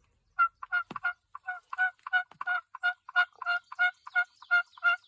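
A long run of turkey yelps: about fifteen short, clipped notes at roughly three a second.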